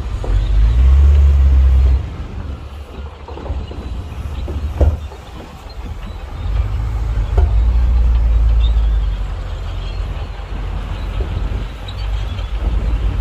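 Diesel engines of heavy earthmoving machines rumbling low, swelling louder twice, with a sharp knock about five seconds in.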